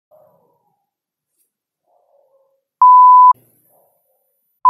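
Censor bleeps, a steady pure beep tone: one half-second beep about three seconds in and another starting near the end, laid over spoken words.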